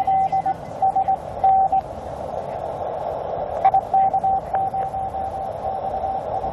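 Morse code (CW) signal coming through the speaker of a Tecsun PL-368 shortwave receiver: a single keyed tone of dots and dashes over band noise. It fades into the noise about two seconds in, then comes back strongly.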